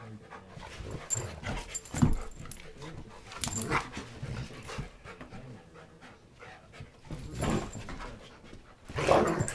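Two Bouvier dogs play-wrestling: panting and scuffling with scattered sudden knocks, the loudest about two seconds in and again near the end.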